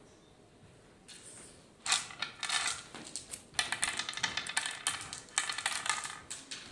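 Hard oware seeds clicking and rattling against a wooden oware board as a handful is lifted from one pit and dropped seed by seed into the following pits. It is a rapid run of small clicks starting about two seconds in, with a brief gap in the middle.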